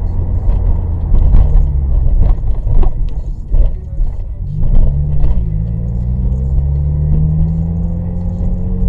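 Car driving at highway speed with steady low road and engine rumble; the engine note rises about halfway through, and several sharp knocks sound in the first half.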